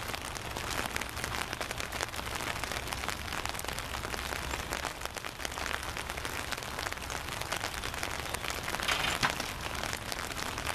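Rain pattering close by: a dense, steady run of fast small drop ticks, with a steady low rumble underneath. A brief louder burst of noise comes about nine seconds in.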